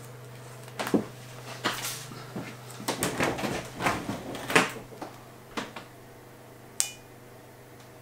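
Rustling, crinkling and light clicks of a vinyl sticker being peeled from its backing sheet and pressed onto a bike frame, in irregular short bursts, with one sharp tick near the end.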